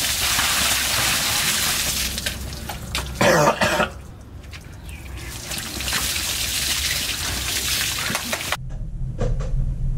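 Water poured from a bucket onto a cloth over a person's face, splashing steadily in two long pours. Between the pours, about three seconds in, the person coughs hard. The pouring cuts off abruptly near the end.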